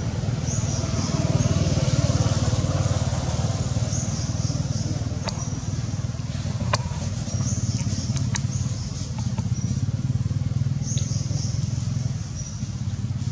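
Steady low rumble of a motor vehicle engine running nearby, swelling for the first few seconds, with a few sharp clicks near the middle.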